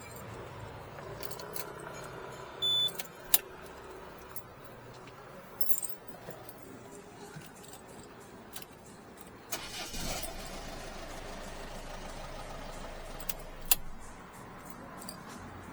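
Car keys and metal lock tools clicking and jangling in a series of sharp clicks, with a short high beep about three seconds in and a louder rushing sound lasting a few seconds from about ten seconds in.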